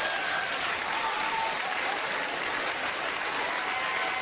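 Studio audience applauding steadily, with a few voices calling out in the crowd.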